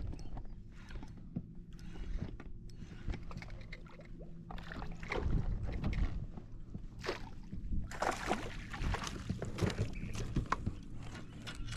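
Sounds of a fishing boat on the water: a steady low motor hum under irregular knocks and splashing, busier in the second half.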